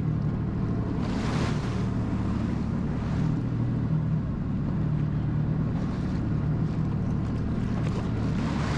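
Jet ski engine running steadily at low throttle, a constant low drone, with short rushes of water and wind noise on the microphone a few times.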